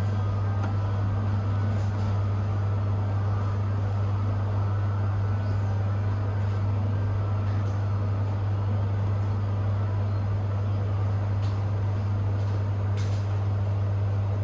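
Steady low drone of a motor or engine over an even background noise, with a few faint clicks.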